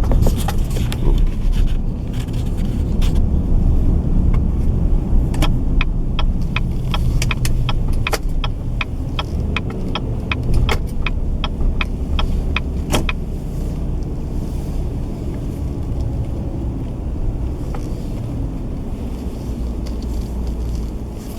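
Car cabin noise while driving: a steady low rumble of engine and road. A turn signal ticks evenly, about two to three times a second, for several seconds in the middle.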